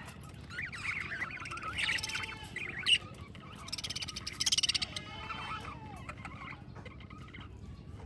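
A flock of budgerigars warbling and chattering, with one sharp loud chirp about three seconds in and a fast run of high chirps soon after.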